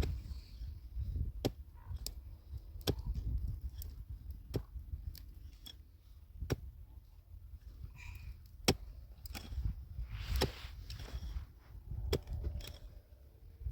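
Irregular sharp clicks and knocks, about one a second, over a low rumble.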